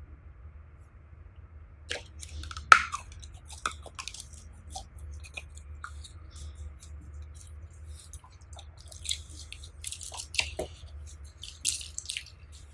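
Slime being squished and mixed by hand, making irregular sticky clicks and crackles that start about two seconds in.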